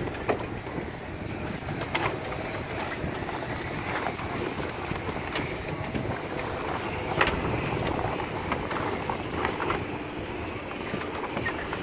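Jib sailcloth crinkling and rustling as it is gathered and rolled by hand, with irregular sharp crackles of the stiff cloth, over steady wind noise on the microphone.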